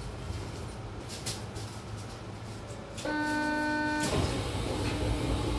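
Low steady rumble of a stopped Nanko Port Town Line New Tram car. About three seconds in, a steady electronic warning tone sounds for about a second, the signal that the doors are about to open. It is followed by a rush of hiss.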